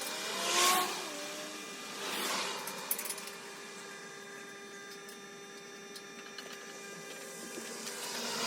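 Road vehicles passing one at a time, each a swelling rush of noise that fades away. One passes about a second in, another at about two seconds, and a third approaches near the end, over a steady faint hum.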